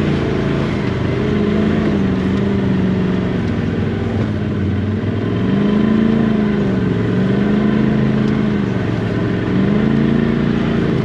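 Side-by-side UTV engine working up a rocky trail in four-wheel drive, its revs rising and falling several times as the throttle is fed on and eased off.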